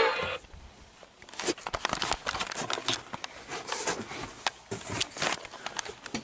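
An animatronic singing fish's song cuts off about half a second in. It is followed by irregular clicks, knocks and rustling of close handling.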